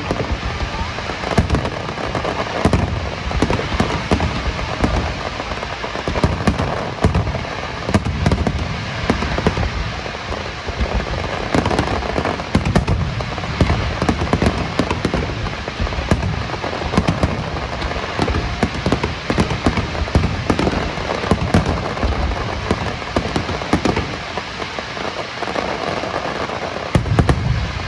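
Aerial fireworks shells bursting in a dense, continuous barrage of deep booms and crackles, with a louder bang near the end.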